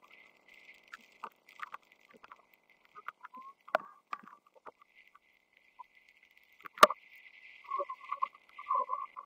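Field hockey stick striking the ball with one loud, sharp crack about seven seconds in, among scattered lighter knocks and clicks.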